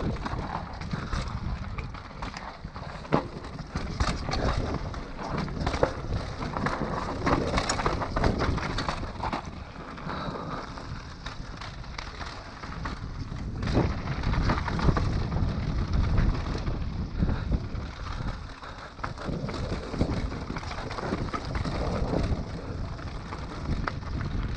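Mountain bike descending a rocky dirt trail: tyres rolling over dirt and stones and the bike rattling, with wind buffeting the microphone and a few sharp knocks from hitting rocks.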